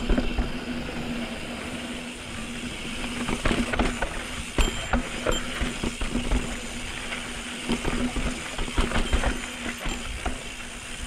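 Mountain bike rattling over a rocky trail, with frequent knocks and clicks from the bike and a steady buzzing tone that breaks off now and then, over low rumbling noise on the camera mic.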